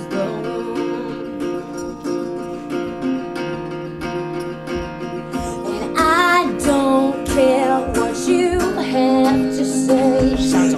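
Acoustic guitar playing a song, joined by a singing voice about six seconds in.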